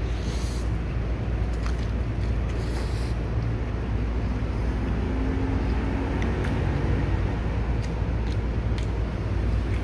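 Noodles slurped into the mouth in two short hissy sucks within the first few seconds, then a few light clicks of chopsticks against the bowl. A steady low rumble of background noise runs under it all.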